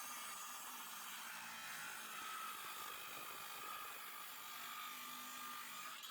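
Milwaukee 6.5-inch brushless cordless circular saw cutting through a thick 2x12, heard faintly as a steady whine and hiss. The motor's pitch sags slightly under load and rises again near the end as the blade comes through the wood.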